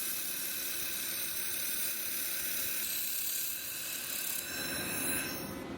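Handheld fiber laser working on metal, a dense high-pitched crackling hiss that shifts in character a few times and stops just before the end.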